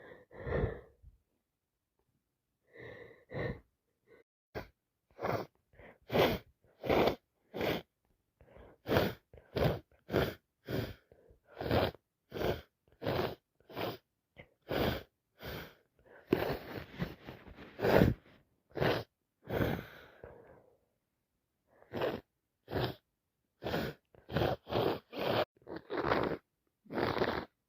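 A woman with a head cold sniffing and sneezing through a congested nose: many short, sharp bursts one or two a second apart, with a longer stretch of snuffly breathing around the middle and the loudest burst about 18 seconds in.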